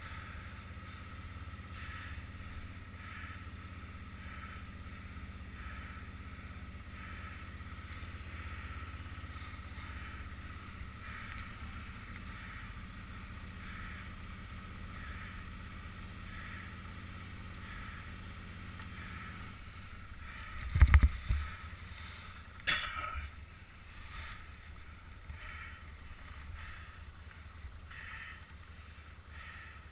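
Can-Am Outlander 800R ATV engine running steadily with a low rumble, interrupted by two loud knocks about two seconds apart near the two-thirds mark.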